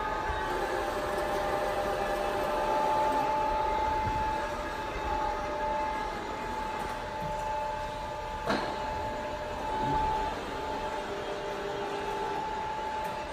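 Volz FUS 33 universal milling machine running, its drive giving a steady whine whose tones shift a few times. A sharp click comes about eight and a half seconds in.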